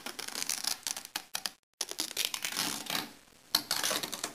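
Fiberglass strapping tape being pulled off its roll and wrapped tightly around a shaft: a dense crackling peel of adhesive tape, cutting out briefly about a second and a half in, with a sharp click near the end.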